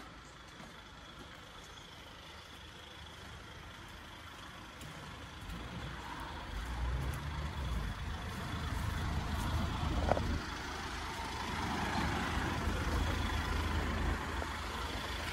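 Car engine idling, growing louder about six seconds in, with a single short click about ten seconds in.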